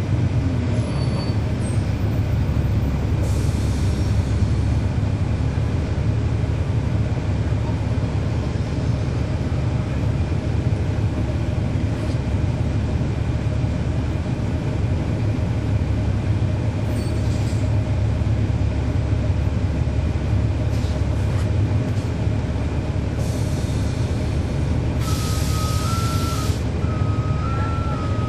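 The Cummins ISL9 inline-six diesel engine of a 2011 NABI 40-SFW transit bus running steadily, heard from inside the rear of the bus. Several short hisses of air come and go, and near the end a loud hiss of air is followed by an electronic beep that alternates between two pitches.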